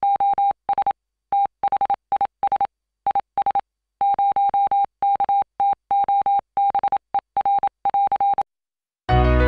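Morse code beeps: a single steady tone keyed on and off in short and long pulses, stopping about eight and a half seconds in. Just before the end, music starts.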